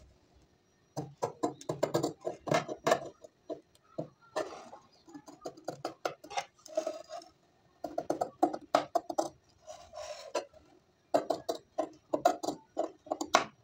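Large tailor's shears cutting through cloth: crisp metal snips in several quick runs, with brief pauses between them.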